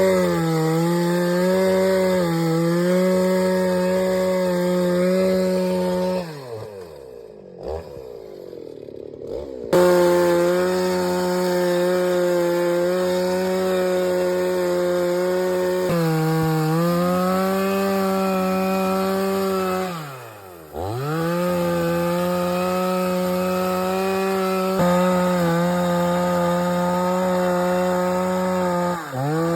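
Chainsaw running at high revs while cutting through a thick teak trunk, the engine note held steady under load. It eases off and drops low twice, about six seconds in and again around twenty seconds, before revving back up.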